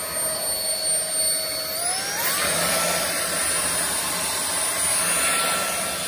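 Jimmy JV83 cordless stick vacuum's high-speed digital motor running with the 2-in-1 upholstery brush tool fitted: a steady whine that rises in pitch about two seconds in and then holds at the higher pitch.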